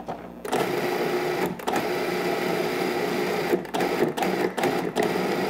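Countertop food processor motor running as it mixes oat flour, pumpkin and peanut butter into a dough. It starts about half a second in, stops briefly, then runs again and turns into short on-off pulses for the last two seconds.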